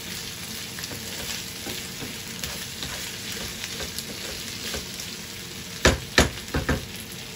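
Chicken pieces, green capsicum and onion sizzling in hot oil in a non-stick pan on high heat, with a steady crackling hiss as they are stirred with a wooden spatula. A few loud knocks come about six seconds in, the spatula striking the pan.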